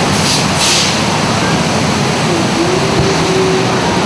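Steady rush of water from a staged flash-flood effect, with two short hissing bursts in the first second. A steady hum joins about two and a half seconds in.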